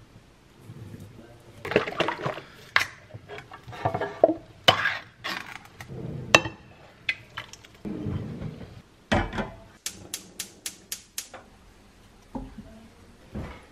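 Kitchen clatter: a tin can handled and its contents tipped into a stainless steel saucepan, with metal clinks and knocks. Near ten seconds in comes a quick run of about eight sharp clicks.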